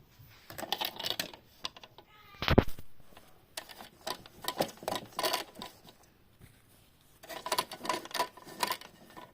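Toy washing machine clicking and rattling in several short spells, with one louder sound about two and a half seconds in.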